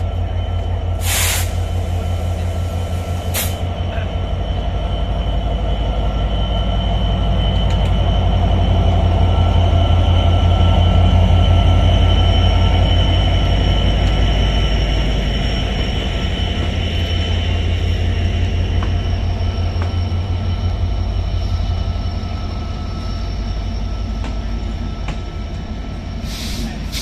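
GT42ACL diesel-electric locomotive with an EMD 710 two-stroke engine pulling a passenger train away under power: a deep steady engine throb with a steady whine over it, swelling to its loudest as the locomotive passes about halfway through, then the coaches rolling by. A short hiss about a second in.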